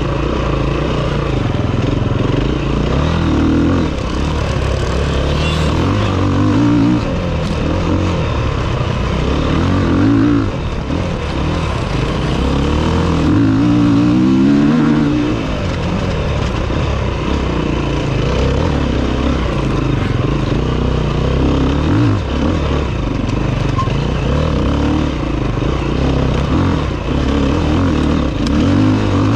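Enduro dirt bike engine heard from onboard, revving up and down as it shifts through the gears over a rough dirt track. About halfway through a second dirt bike's engine runs close alongside.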